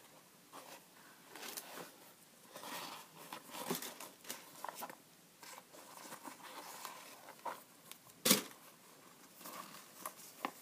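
Handling noise from hands turning and feeling inside a white canvas Converse Chuck Taylor All Star II sneaker: irregular rustles and soft taps, with one sharp knock about eight seconds in.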